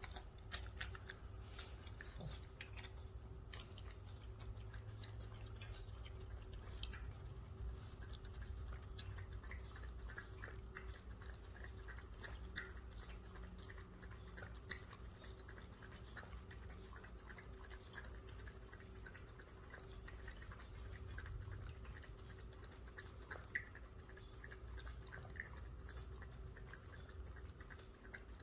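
Small white dog lapping water from an electric pet drinking fountain: a fast run of small wet clicks, with a faint steady hum from the fountain's pump underneath.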